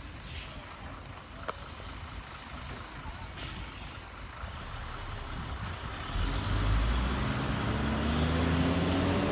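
Street traffic with a truck's engine running close by. About six seconds in the engine gets louder and its pitch rises steadily as the truck pulls away.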